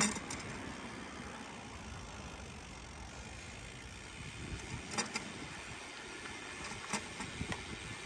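Steady rumble and wind noise of a bicycle rolling along a path, with a few sharp clicks or rattles about five and seven seconds in.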